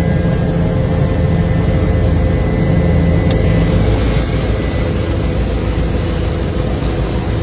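Helicopter engine and rotor noise, a steady loud rumble with a constant hum; a low tone in it drops away about four seconds in.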